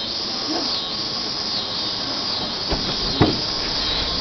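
Steady hiss of background noise with faint, brief voice-like sounds and a short thump about three seconds in.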